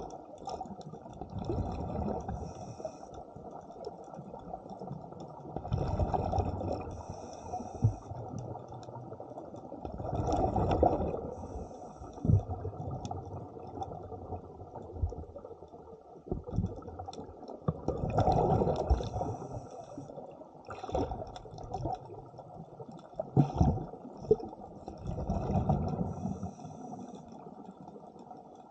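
A scuba diver breathing through a regulator, heard underwater: bursts of bubbling and hiss every few seconds, with a few short knocks between them.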